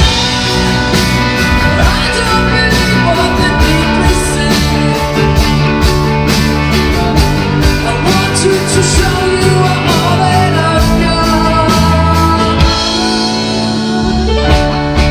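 Indie rock band playing live: electric guitars, bass guitar, keyboard and drums, with a man singing. The drummer's cymbal strokes stop briefly near the end, then come back.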